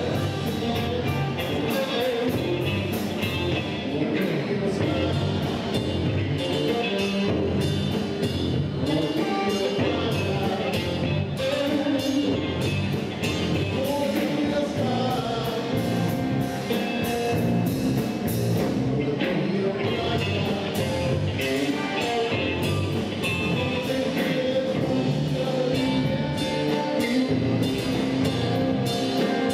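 Live band playing a blues song on electric guitars, bass guitar and drum kit, with a singer's voice over the band.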